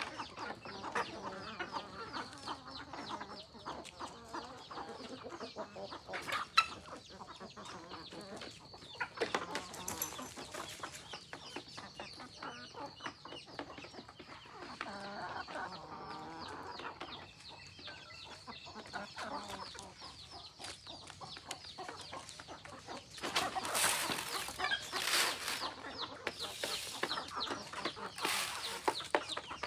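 Free-range chickens clucking, with many small clicks throughout and louder scratchy noises over the last few seconds.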